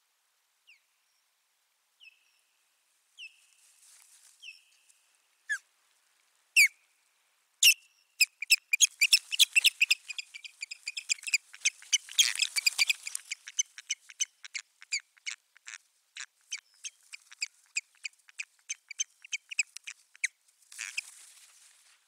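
Osprey calling: a few separate sharp, high calls, then from about eight seconds in a long rapid series of them, several a second, thinning out near the end. This kind of excited calling goes with a territorial dispute between ospreys at the nest.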